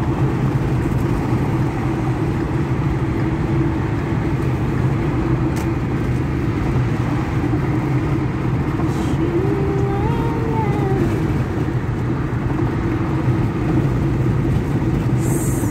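Steady road and engine noise heard inside a car cruising at highway speed. A faint tone rises and falls briefly about ten seconds in.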